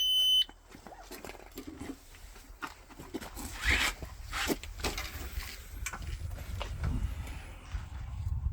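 Electronic shot timer giving its start beep, one steady high tone lasting about half a second. It is followed by scattered clicks, knocks and rustling of handling and movement, with a low rumble growing toward the end.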